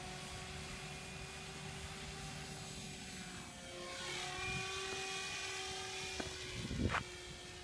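MSH Protos RC helicopter running with a steady whine and rotor hum, growing louder and bending in pitch as it lifts off and flies past about four seconds in. A brief louder sound near the end.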